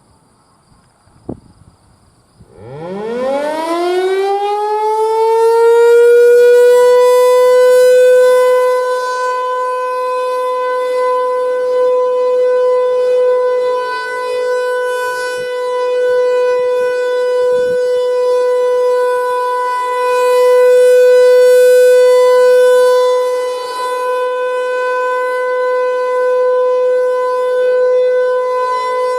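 ASC T-135 AC/DC rotating outdoor warning siren starting its steady alert signal on a monthly test. A brief click comes first, then about a second later the siren winds up, its pitch rising steeply over a few seconds to a steady tone near 500 Hz with strong overtones. The sound swells and fades as the rotating horn sweeps around, about every 15 seconds.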